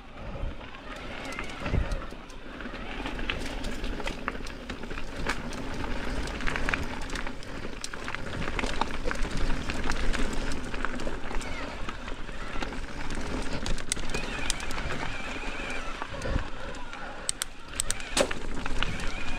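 Mountain bike riding up a dirt and rock trail: tyres rolling over the ground, with many small clicks and rattles from the bike throughout.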